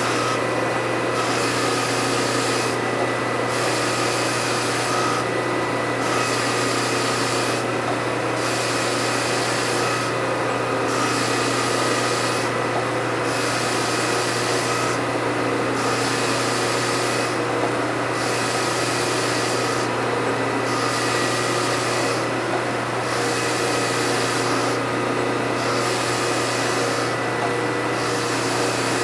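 A 60-grit zirconia belt on a 1x72 belt-grinder conversion of a hydraulic surface grinder, grinding a W2 steel blade over a 5-inch serrated contact wheel. Under the steady motor hum the grinding hiss runs continuously, dipping briefly about every two and a half seconds as the table reaches each end of its stroke.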